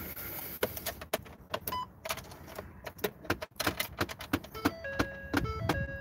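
Key clicking and jangling in the ignition of a 2013 Ford F-150 that will not start: turning the key does nothing and the engine does not crank. From about four and a half seconds in, a string of steady electronic tones at shifting pitches sounds along with the clicks.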